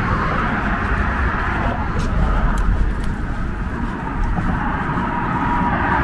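Steady rush of highway traffic on the other side of the concrete barrier, with a heavy low rumble from wind on the microphone.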